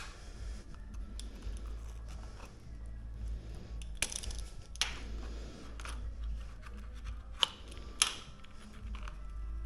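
A few scattered sharp clicks and light clatter of small parts being handled, over a low steady hum.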